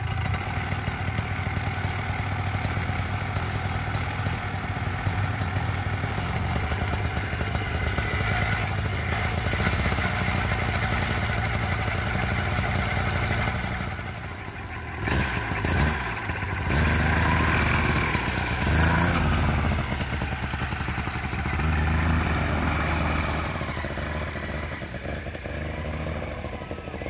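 Polini Thor 250 single-cylinder two-stroke engine on an ultralight nanotrike running with its propeller turning, steady at first. In the second half it revs up and down, rising and falling in pitch.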